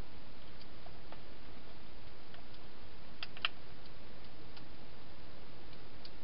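Wild hedgehog feeding inside a clear plastic feeding box: scattered faint clicks and taps, with a short cluster of louder clicks about three and a half seconds in, over a steady hiss.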